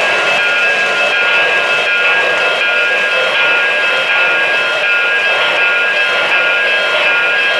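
O-gauge model freight train rolling past on three-rail track: a steady, loud whir of wheels and motors with a constant high whine.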